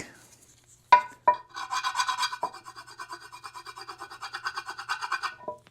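A hand tool working metal on the engine: two sharp knocks, then about four seconds of fast, even metallic rasping with a ringing edge.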